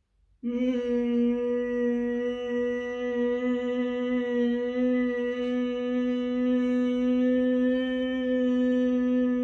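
A woman humming one long, steady, unbroken note, which starts about half a second in. It is a humming exercise done with the hands clasped over the ears.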